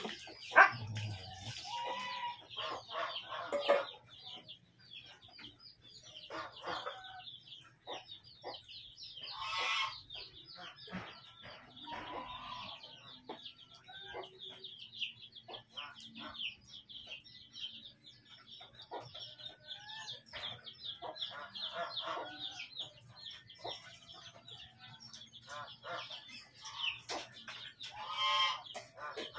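Hens clucking, with louder calls about ten seconds in and again near the end, over a constant rapid high peeping of chicks. A few sharp knocks are mixed in.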